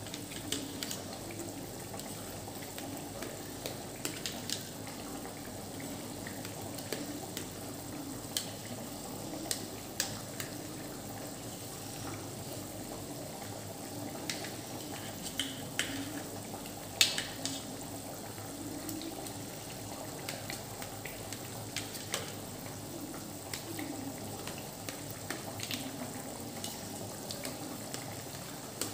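Curry gravy boiling steadily in a pot with a low bubbling, while a knife cutting set gram-flour patod gives scattered sharp clicks against the metal pan. The loudest click comes a little past halfway.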